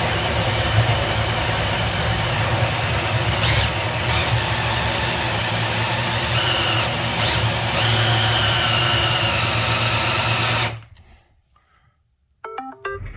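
Makita 18V cordless drill spinning a 59 mm bi-metal hole saw that cuts into a wooden desktop, widening an existing grommet hole. It runs steadily for about eleven seconds, then stops.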